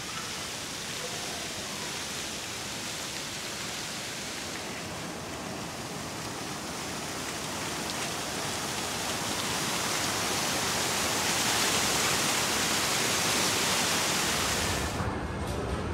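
Large fountain's water jets splashing and falling into the basin, a steady rush of water that grows louder about ten seconds in. About a second before the end it cuts off sharply, leaving a quieter low hum.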